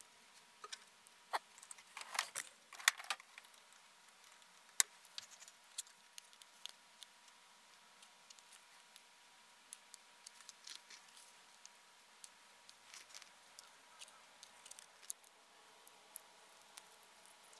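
Scattered light clicks and taps of small metal parts and hand tools being handled at a workbench, a quick cluster about two seconds in and one sharp click near five seconds, over a faint steady hum.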